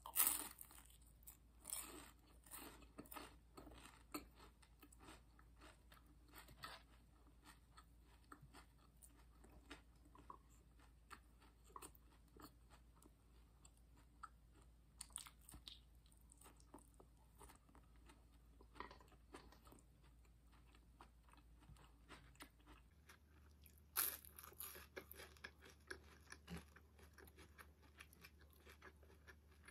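Faint crunching and chewing of a fried lumpia spring roll, a stream of small crisp clicks, with louder crunchy bites at the start and again about three-quarters of the way through.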